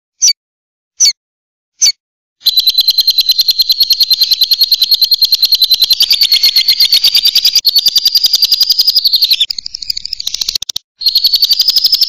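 Lovebird calling: a few single sharp chirps, then a long, fast, evenly repeated run of shrill chirps, the long chatter that bird keepers call ngekek. The chatter turns rougher and breaks off briefly near the end, then starts again.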